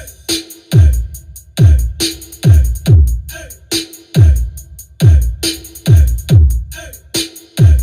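Electronic dance music with heavy bass kicks, each sweeping down in pitch, about one a second, with sharp percussion between them, played through an ATI Pro YX 15X 800HD 15-inch speaker in a cabinet for a bass sound check.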